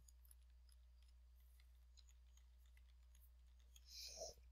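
Faint typing on a computer keyboard, keys clicking irregularly, with a brief louder noise about four seconds in, over a low steady hum.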